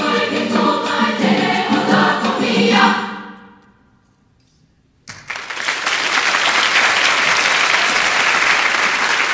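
A large treble choir sings its final chord with piano, guitar and percussion, fading away about three seconds in. After a second of near silence, an audience breaks into applause that keeps going.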